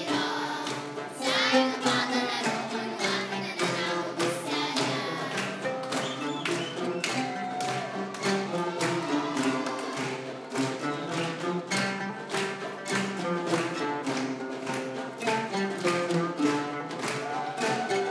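Live music from a children's ensemble: Arabic tabla (darbuka) hand drums beating a quick, dense rhythm under plucked ouds and children singing.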